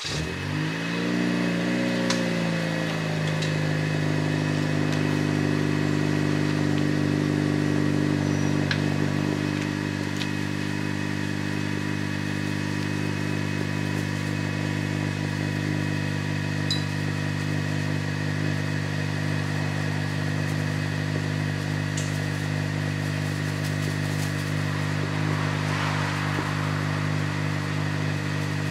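Cold start of a 2021 Honda Civic Sport hatchback's 1.5-litre turbocharged four-cylinder through a muffler-deleted exhaust. The engine cranks and catches, wavers in pitch for a few seconds, then settles into a steady, deep-toned cold-start idle that drops slightly in level about ten seconds in.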